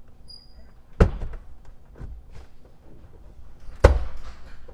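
Plastic lower trim panel in a Cadillac SRX's driver-side footwell being pulled loose by hand: two sharp snaps as its retaining clips let go, one about a second in and a louder one near the end, with plastic rustling between.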